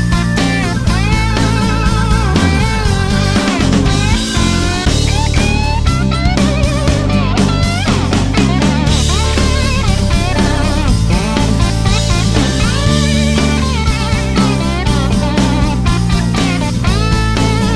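Background rock music: an electric lead guitar with vibrato over bass and drums.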